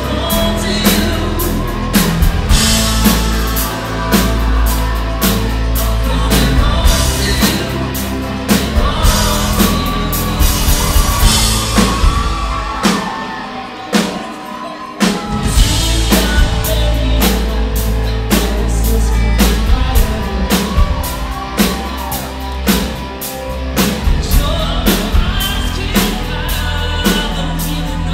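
Live rock band playing, a male singer over drums, bass and electric guitar with a steady beat. About twelve seconds in the drums and bass drop out for a couple of seconds, then the full band comes back in.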